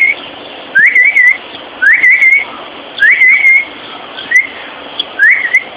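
A series of short, high whistles, about one a second. Each slides up and then holds briefly, and the one just past the middle is shorter.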